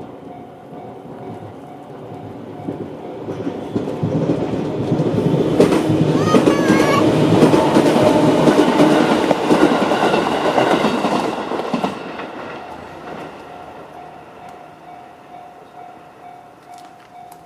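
A JR 211 series electric train passes over a level crossing: it builds up, is loudest for several seconds around the middle, and fades away. The crossing's electronic warning bell, in the JR standard tone, rings steadily before and after the train.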